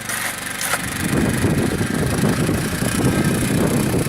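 A vehicle engine running steadily. From about a second in, a loud rough rumble low in pitch covers it.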